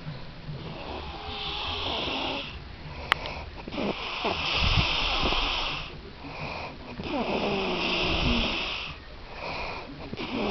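A sleeping man snoring: three long snores about three seconds apart and a shorter one near the end. A sharp click about three seconds in.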